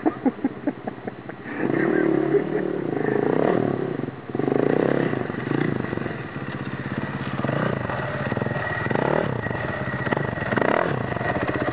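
KTM dirt bike engine ridden through mud, the throttle opened and closed in repeated surges so the revs keep rising and falling, with a quick run of sharp blips in the first second. It passes close near the end.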